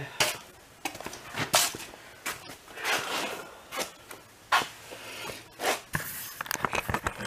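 Irregular knocks, clicks and short scraping sounds of handling and moving about around a motorcycle lift, with a quick run of small clicks near the end.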